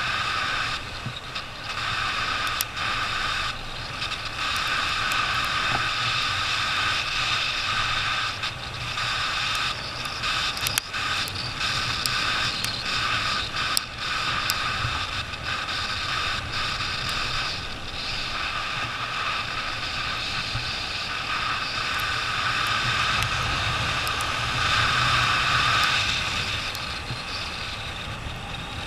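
Motorcycle engine running while riding along a trail, with wind on the microphone and scattered knocks and rattles; it grows louder a little after the middle, then eases off near the end.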